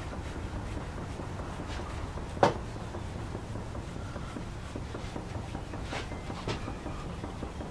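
Hewing hatchet's bevel being honed on the 10,000-grit finishing side of a wet water stone, the stone rubbed quickly back and forth over the steel in a soft scraping, at the final polishing stage. A sharp knock comes about two and a half seconds in, with a couple of lighter clicks near the end.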